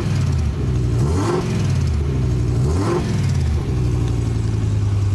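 BMW M5 E60's V10 engine revved in two quick throttle blips, then held at a steady speed, to bring out a ratchet-like rattle from the engine bay. The owner fears the noise may be spun bearings.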